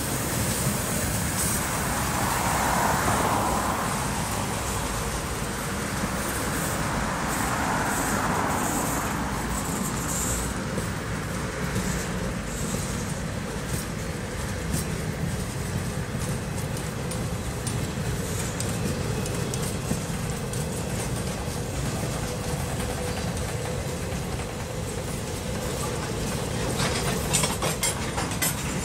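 Freight train cars rolling past close by: a steady rumble of steel wheels on rail, swelling twice in the first few seconds, with a run of sharp clicks near the end.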